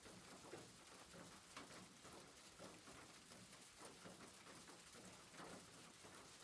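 Rain falling on a rooftop, faint: a steady hiss with many scattered, irregular ticks of single drops.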